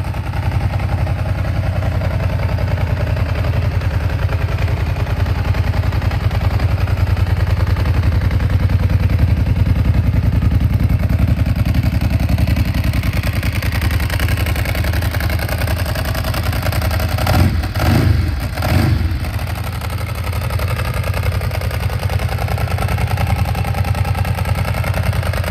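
Ducati 749S's L-twin engine idling steadily to warm up, with the clatter of its dry clutch, which is normal for it and not a fault. About two-thirds of the way through the throttle is blipped three times in quick succession before it settles back to idle.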